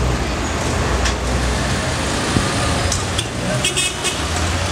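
Road traffic on a city street: a steady rumble of motor vehicles, with a few brief high-pitched tones near the end.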